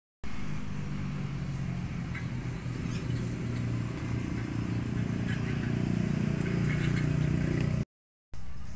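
An engine running steadily close by, a low rumble that grows slightly louder toward the end, with scattered small clicks and clatter over it. The sound drops out briefly at the start and again near the end.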